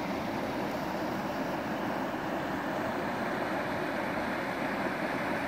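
Mountain creek rushing over rocks through a small riffle, a steady, even rush of water.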